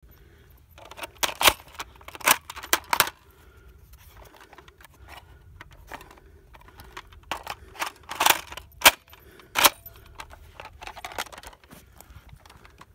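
Sharp plastic clicks and clacks from handling the clear plastic magazine of an X-Shot foam-dart blaster, as darts are pushed into it. The clicks come in two bursts, one starting about a second in and another about seven seconds in.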